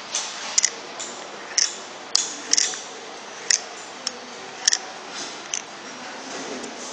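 About a dozen sharp, irregular clicks and ticks over a steady faint hiss: the graphite vanes and rotor of an opened rotary-vane vacuum pump being handled and turned by hand.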